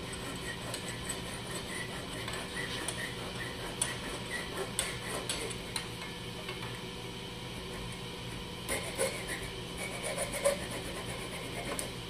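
Hacksaw cutting the threaded part of a small rotary switch clamped in a bench vise: light back-and-forth rasping strokes, with a few sharper clicks and clinks in the second half.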